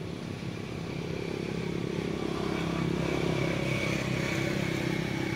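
A motor vehicle's engine running steadily, with a thin whine above its hum, growing a little louder about halfway through.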